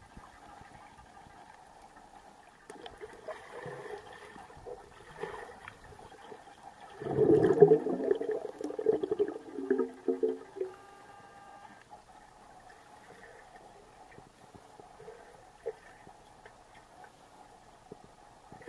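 Pool water heard underwater: a faint steady hum with scattered small clicks, then a loud burst of bubbling and gurgling about seven seconds in. The burst lasts around three seconds and comes from a swimmer's air bubbles and kicking close to the microphone.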